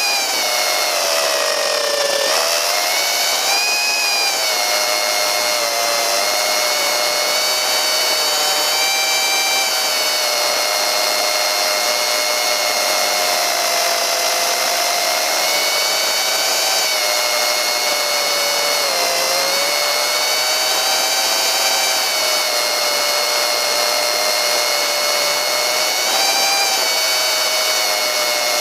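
Motor and propeller of a small pusher-prop FPV model plane whining steadily in flight, the pitch dipping and rising with throttle changes, most noticeably about two seconds in and again around nineteen seconds.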